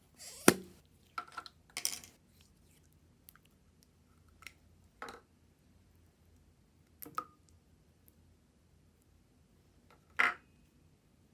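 Putty slime being worked by hand: a handful of short, separate squishes and clicks. The loudest comes about half a second in, and another strong one comes near the end.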